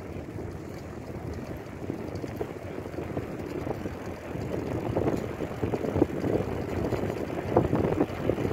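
Wind buffeting the microphone while riding a bicycle downhill: a low rumble that grows louder as speed builds.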